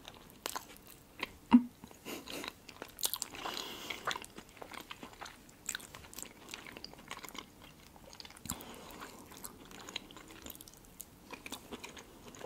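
Close-miked eating of soft food: chewing with wet mouth clicks and smacks, the sharpest click about a second and a half in. A metal fork touches and scoops from the plate about halfway through.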